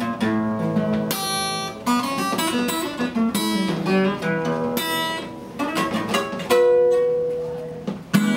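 Acoustic guitar played in a blues style, strummed and picked. About six and a half seconds in, a note is left ringing and fades away, and one last sharp strum comes near the end.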